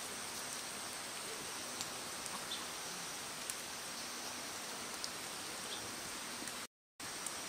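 Quiet outdoor ambience: a steady hiss with a faint, steady high-pitched tone and a few soft ticks. It cuts out to silence for a moment near the end.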